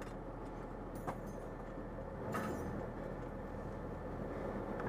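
Military vehicle's engine idling, heard from its gun turret: a steady low hum, with a single click about a second in and a brief hiss about halfway through.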